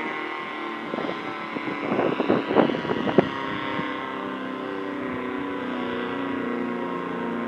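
ACA Banshee 115 tornado siren sounding a steady tone during its test. Rough bursts of wind noise hit the microphone between about one and three seconds in.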